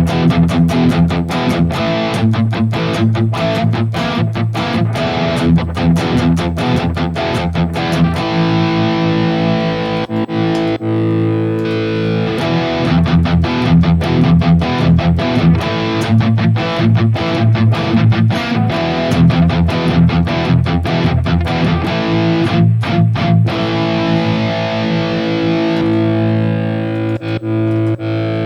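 High-gain distorted electric guitar riffing through a Harley Benton DNAFX Git Pro modeling unit, with tightly picked chugs between held chords. The boost in front is first the unit's 808 Screamer model and then a real Ibanez TS9 Tube Screamer pedal, which gives more output in the highs, more distortion and a little more top end.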